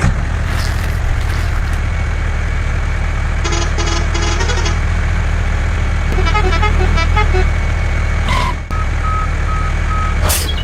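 Truck engine running steadily, with horn toots about three and a half seconds in and again about six seconds in, and a quick run of even beeps near the end.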